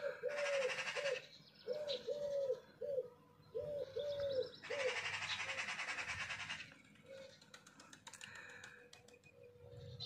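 A dove cooing, short low notes in phrases of about three, repeated three times over the first four and a half seconds. Twice there is a harsh, rapid buzzing rattle, the longer one starting about five seconds in and lasting about two seconds.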